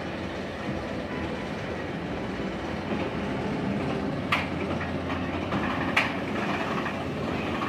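Bolliger & Mabillard inverted roller coaster train (Nemesis Reborn) rolling out of the station on its steel track: a steady mechanical rumble, with two sharp clunks about four and six seconds in.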